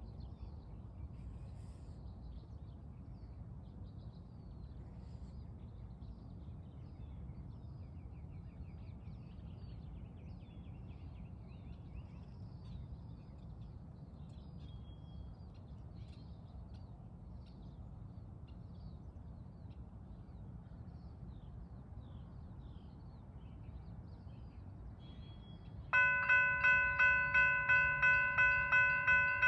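Railroad crossing warning bell starts ringing about 26 seconds in, a rapid repeating ding about three times a second, as the crossing signals activate for an approaching train. Before that, birds chirp over a faint low background rumble.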